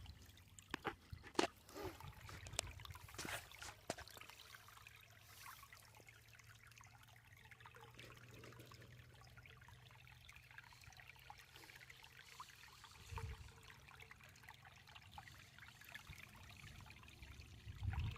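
Faint trickling and splashing of a waterfall, a thin steady wash of water. A few sharp clicks come in the first four seconds, and there is a low thud about 13 seconds in.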